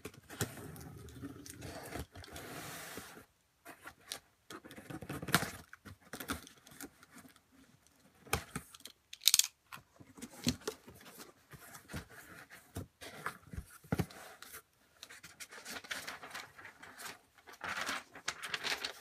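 Box cutter slicing along the taped seams of a cardboard shipping box, in short irregular scraping strokes with sharp clicks and knocks, the loudest about 5 and 9 seconds in. Near the end the cardboard flaps are pulled open and a paper sheet rustles as it is lifted out.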